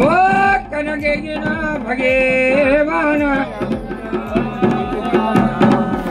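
Dhol and damau drums playing a steady beat, with a voice singing long, wavering notes over it: Garhwali folk drumming and song for a mandan dance.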